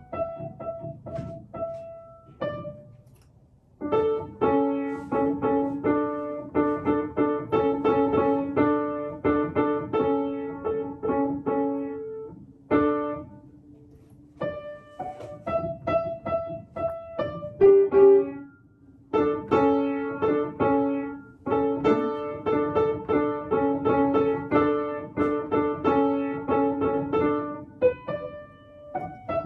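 Upright piano played by a young child: simple repeated chords and melody notes in short phrases, with brief pauses between them.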